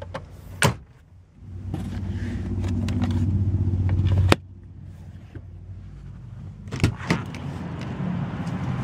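Sharp click as the glove box door shuts, then a small electric motor hums steadily for about three seconds, growing louder, and stops with a sharp click. Later come a quieter hum and two light clicks from the car's interior fittings.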